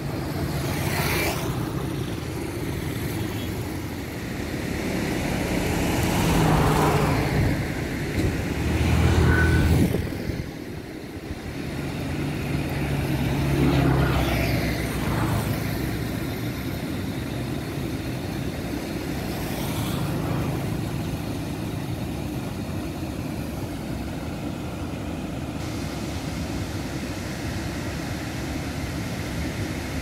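Road traffic passing close by: several vehicles drive past one after another, each swelling and fading, the loudest about nine seconds in, over a steady rushing background noise.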